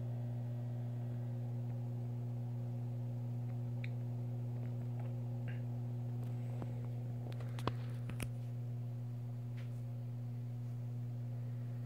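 Steady low hum with a few overtones, with two sharp clicks about two thirds of the way through.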